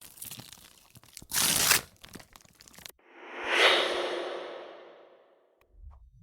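Two editing transition sound effects. The first is a dense, crunching run of clicks and noise with a loud surge about a second and a half in, cutting off suddenly at about three seconds. The second is a whoosh-like swell that peaks quickly, falls in pitch and fades out over about two seconds.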